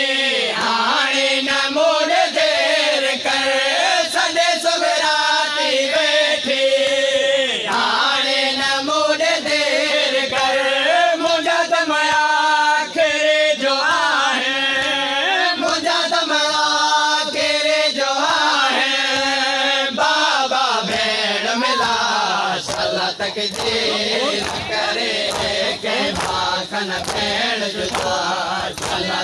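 A group of men chanting a nauha, a Muharram lament, in unison, with regular chest-beating (matam) strikes keeping time. After about twenty seconds the sung lines give way to crowd noise and the beating.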